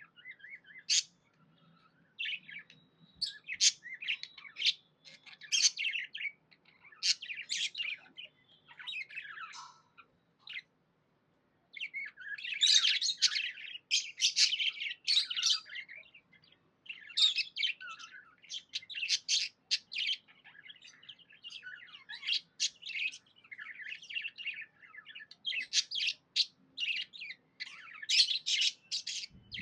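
Pet budgerigars chirping in quick runs of short high calls, with a pause of about two seconds near the middle.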